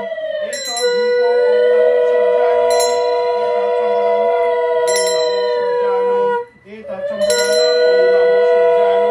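Conch shells (shankha) blown in long held blasts for the offering, breaking off briefly for breath about half a second in and again around six and a half seconds in. A brass puja hand bell is struck now and then over them.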